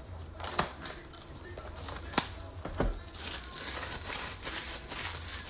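Gloved hands handling a cardboard trading-card hobby box and its packaging: a few sharp clicks and taps, then a stretch of crinkling and rustling.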